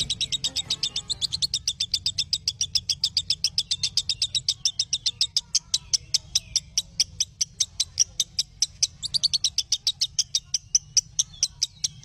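Lovebird 'ngekek' chatter: a long unbroken string of sharp, high chirps at about seven a second, kept up without a pause.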